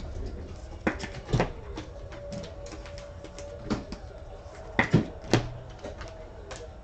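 Handling noise: trading cards and cardboard boxes being moved about on a table, with about half a dozen sharp taps and knocks.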